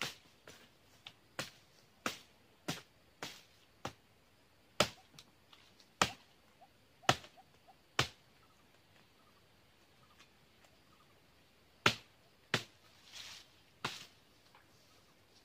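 Machete blade chopping into the lower fronds of a young oil palm during pruning: a dozen or so sharp chops, irregularly spaced, with a pause of about three seconds in the middle. A brief rustle of dry fronds comes near the end.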